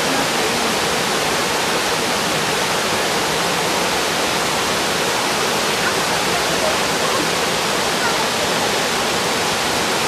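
Small waterfall cascades pouring over low rock ledges into a stream pool: a steady, even rushing of water.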